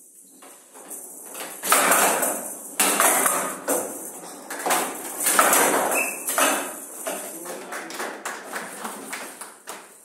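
A showdown rally: the rattling ball, which has metal beads inside, is struck back and forth with bats and clacks off the wooden table's side walls. There are several hard hits between about two and seven seconds in, then softer taps and rattles.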